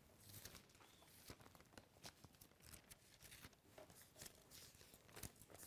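Near silence with faint, scattered rustles and light clicks: pages of a Bible being turned to look up a passage.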